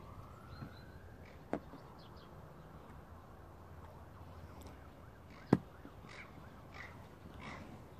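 Quiet background with two sharp clicks from handling a plastic ParkOne parking disc, the second and louder one about five and a half seconds in. A faint rising tone sounds in the first second.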